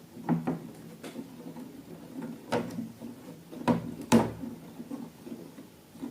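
Handling noises: a series of sharp taps and clacks at uneven intervals, the loudest a little past the middle, over a faint low steady hum.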